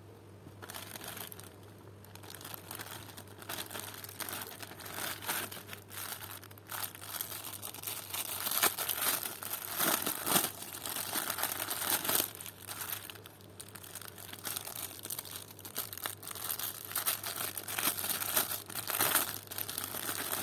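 Clear plastic bag crinkling irregularly as hands handle it, starting about a second in. A faint steady low hum runs underneath.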